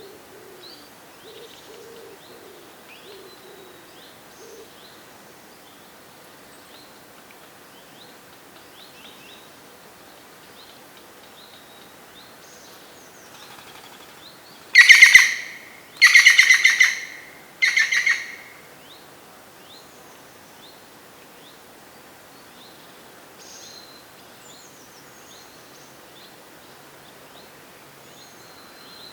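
Woodland birdsong: small birds chirping faintly throughout, with a pigeon cooing low at the start. About halfway, a nearby bird gives three loud, harsh calls about a second apart.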